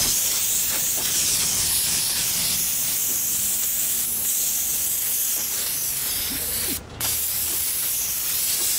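Aerosol party string spraying from a can in a steady hiss, with a brief break about seven seconds in.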